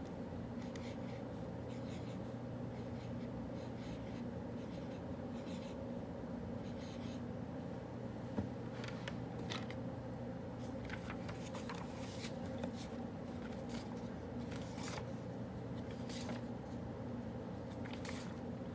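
Writing on paper: short, irregular scratchy strokes, most of them in the second half, with one sharp tick about eight seconds in, over a steady low room hum.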